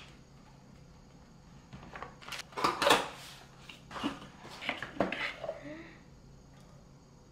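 Kitchenware being handled: a run of clinks and knocks of dishes and utensils, loudest about three seconds in, with a few more around four and five seconds.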